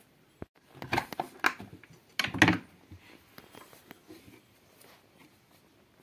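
Steel utensils and tins being rummaged through on a shelf, clinking and knocking. It comes in two short clattering bursts, about one second and two and a half seconds in, then a few light taps.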